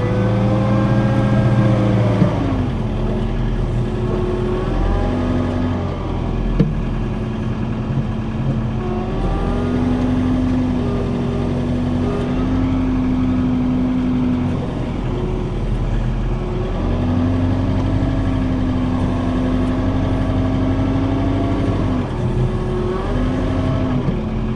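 John Deere 4066 compact tractor's diesel engine running under load, its pitch rising, holding and dipping again several times as the tractor works. A single sharp knock about six seconds in.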